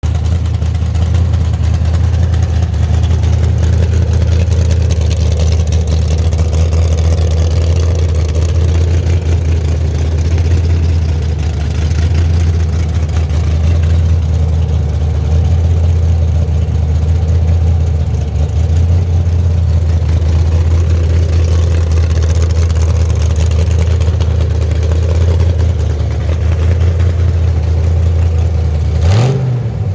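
Freshly rebuilt Ford 351 Cleveland V8 with a four-barrel Holley carburettor, idling steadily on its first run after the rebuild. Near the end the throttle is blipped once and the revs rise quickly.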